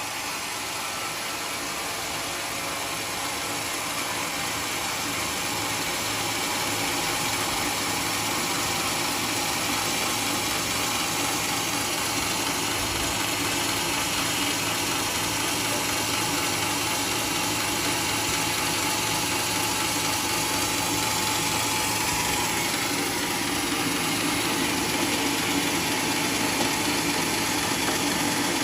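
Portable band sawmill running steadily as it saws through a coconut log: an engine hum under a dense, even hiss from the blade.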